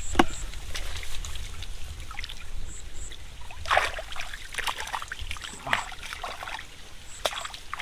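Hands splashing and sloshing in shallow muddy ditch water while groping for catfish: irregular splashes, the loudest about four seconds in.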